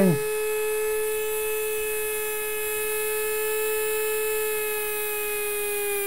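Small brushed DC hobby motor spinning at 60% PWM speed from an L298N driver: a steady electric whine that sags slightly in pitch near the end.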